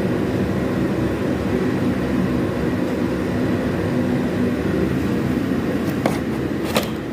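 Steady low mechanical drone, with two sharp clicks near the end.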